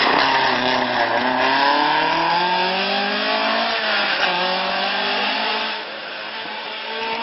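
Rally-prepared Mk2 Ford Escort engine accelerating hard through the gears, the revs climbing and dropping back with each upshift, getting quieter about six seconds in as the car pulls away.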